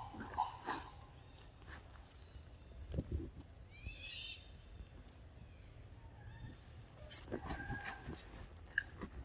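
Forest ambience: a bird gives a short run of chirping notes about four seconds in, over a faint steady insect whine. Scattered soft knocks and rustles close by, with a cluster of them about seven seconds in.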